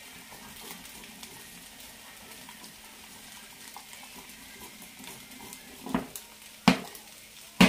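A spoon stirring thick soup in a saucepan on the hob, quietly, with three sharp knocks near the end, the last the loudest.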